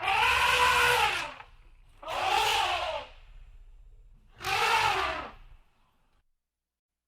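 A baby animal crying three times. Each call is a drawn-out, hoarse cry lasting about a second, rising and then falling in pitch.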